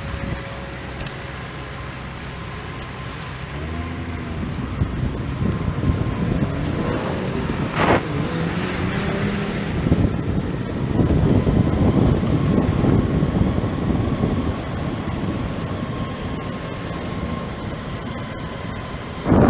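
Wind buffeting the microphone on a moving e-bike, with road traffic passing alongside. A brief louder swish comes about eight seconds in.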